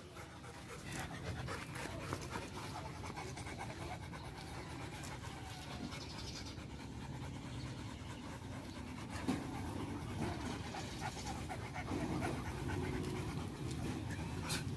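Dogs panting steadily, golden retrievers and a black retriever-type dog, out of breath and tired after a walk.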